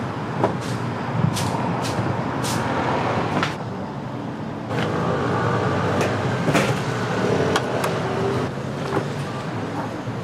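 Street traffic ambience with a steady low rumble, broken by a series of sharp knocks and clatter as a food truck's panels and gear are opened up and set out.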